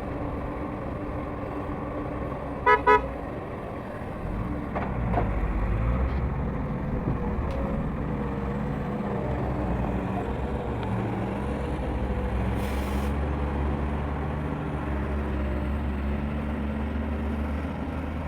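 Excavator's diesel engine running steadily, growing louder about five seconds in as it works. Two short horn toots sound about three seconds in.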